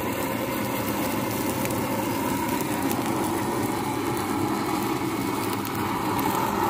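Shami kebab patties sizzling in shallow oil on a tawa over a gas burner, with the burner's flame making a steady rumble underneath.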